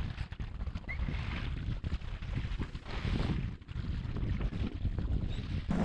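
Wind buffeting the microphone over water sloshing against a pedal kayak's hull on a choppy sea, as a steady, uneven rumble.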